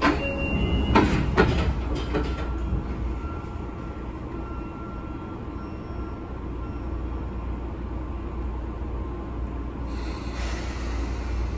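Sotetsu 9000 series commuter car's sliding doors closing at a station stop. A short chime is followed by several sharp thumps and knocks as the doors shut about one to two seconds in. The car then stands with a steady low hum, and a hiss of air sets in near the end.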